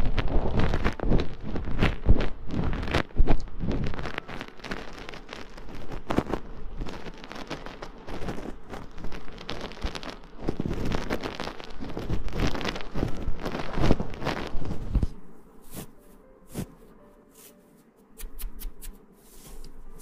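Close-up ASMR rustling and rubbing on the microphone: a dense, crackly rustle that thins out about fifteen seconds in to a few soft ticks.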